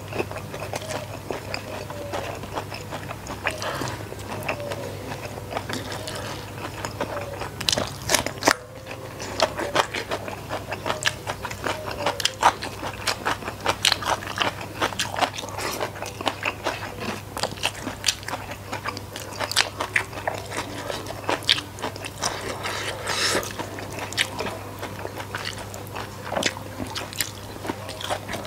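Close-miked chewing of a rice-and-sambal meal eaten by hand, with many short, irregular crunches as the food is bitten and chewed.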